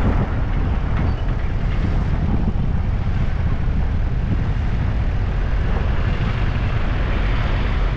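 Steady low rumble of a moving vehicle's engine and road noise mixed with wind on the microphone, unchanging throughout.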